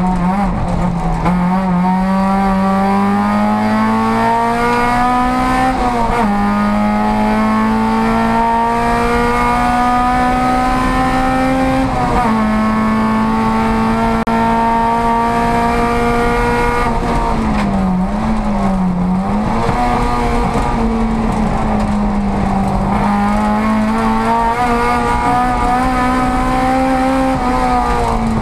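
Volkswagen Golf race car's engine heard from inside the stripped cabin under full throttle. It climbs steadily in pitch, drops sharply at upshifts about six and twelve seconds in, holds, dips and wavers briefly off-throttle a little past halfway, then climbs again to another upshift near the end.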